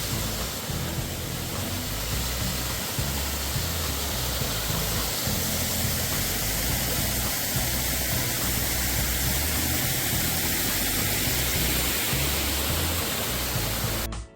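Steady rushing noise of water, loud and even, with background music playing underneath.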